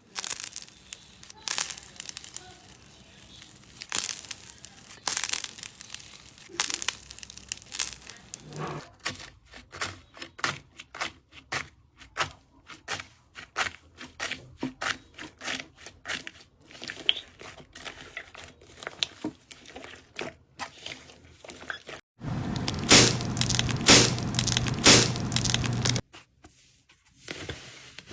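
Hands squeezing, poking and stretching slime: an irregular run of crackles, clicks and small pops. A denser, louder stretch of squishing comes near the end.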